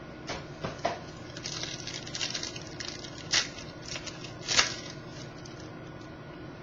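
Baseball card packs and cards being handled, with crinkling and rustling in a series of short, scratchy swishes. The sharpest come about three and a half and four and a half seconds in.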